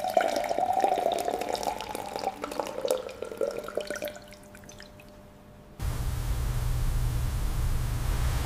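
Red wine poured from a glass flask into a glass graduated cylinder, splashing and trickling with a wavering tone that slowly falls, fading out about five seconds in. About six seconds in, a steady low hum starts abruptly.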